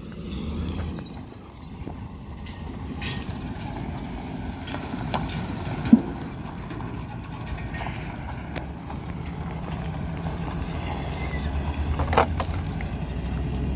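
Flatbed truck engine running as it pulls out and drives off towing a trailer loaded with a tractor, with a few sharp knocks along the way.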